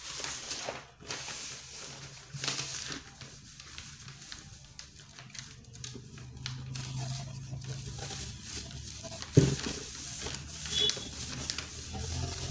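Paper pattern pieces rustling and crinkling as hands fold, lift and smooth them flat, with one sharp knock about nine seconds in.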